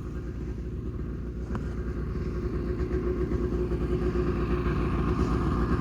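A vehicle engine running steadily with a fast, even pulse, slowly getting louder.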